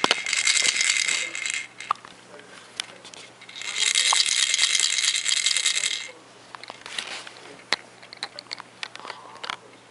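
A rattle shaken in two bursts, the first about one and a half seconds long and the second, starting about three and a half seconds in, about two and a half seconds long. Scattered small clicks and taps fall between and after the bursts.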